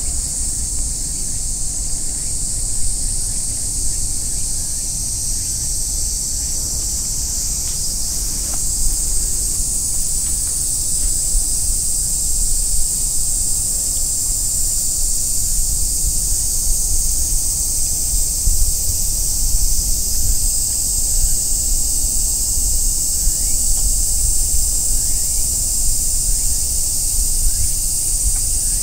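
Steady, high-pitched drone of a cicada chorus, with a low rumble of wind on the microphone.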